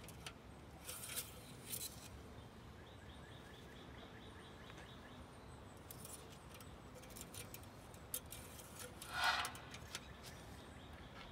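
Quiet outdoor background with a faint high bird trill and chirps. A few light clicks come from the oil dipstick being drawn out of a jet ski engine, handled and put back.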